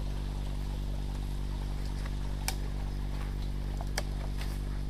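Footsteps through dry forest undergrowth, with two sharp snaps of twigs or stems, one about halfway through and one near the end, over a steady low electrical hum.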